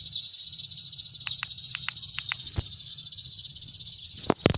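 Electronic bird-trapping lure speaker playing a recording of sparrow flock calls: a dense, steady, high-pitched chatter meant to draw the feeding flock onto the glue traps. A couple of sharp knocks sound near the end.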